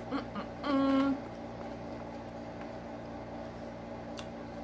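A short, level-pitched hummed "mm" about a second in, as of someone tasting food, then a steady low room hum with a single faint click near the end.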